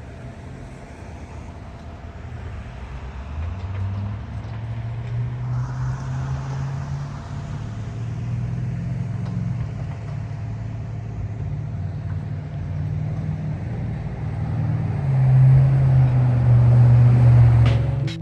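Motor vehicle engine running nearby with a low drone, growing louder over the last few seconds, over steady road traffic noise.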